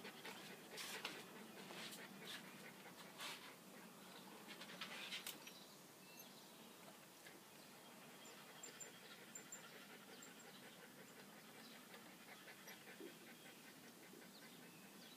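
Small terrier panting quietly, with a run of breathy gasps in the first five seconds or so, then only a faint background.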